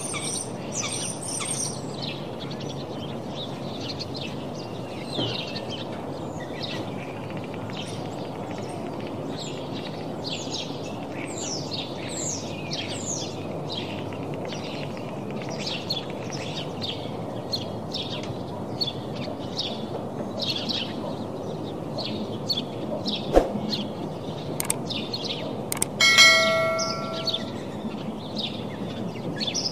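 Small birds chirping repeatedly over a steady low background noise. Near the end a sharp click, then a short ringing, bell-like tone, the loudest sound.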